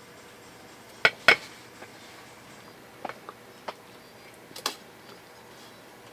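Sharp clinks and knocks of tableware being handled: two loud ones just after a second in, a few lighter ones around three seconds, and a last pair near five seconds.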